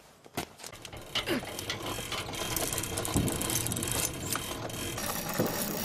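Hand-cranked winch turning and clicking as its handle is wound to hoist a load. The clicks come one by one at first, then run together into a steady rattle from about two seconds in.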